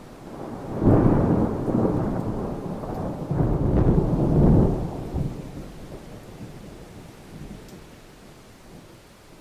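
Thunder rolling during rain: a deep rumble swells up, peaks about a second in and again around four seconds, then dies away slowly, with the hiss of rain underneath.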